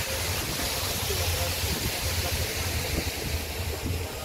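Water falling over a man-made rock-ledge waterfall: a steady, loud rush of splashing water.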